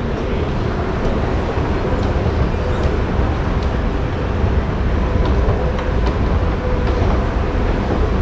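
Escalator running while being ridden down: a steady low rumble with faint light clicks over it.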